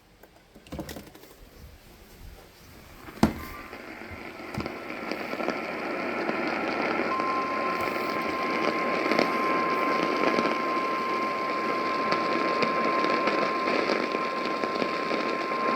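Radio receiver hissing with static, which rises after a sharp click about three seconds in. From about seven seconds a single steady alert tone sounds over the static: the alert tone that comes ahead of a broadcast National Weather Service warning.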